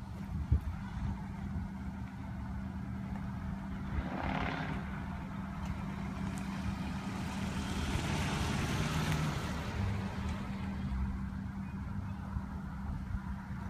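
Cars on a road: a steady low engine drone throughout, and a car driving past with its tyre and engine noise swelling around the middle and fading away.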